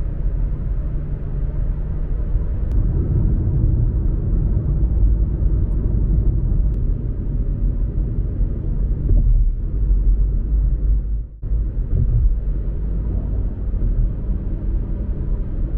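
A car being driven, its steady low road and engine rumble filling the sound, with a brief dip about eleven seconds in.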